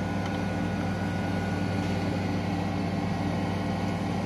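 A machine running steadily, heard as a low, even engine-like drone with no change in speed.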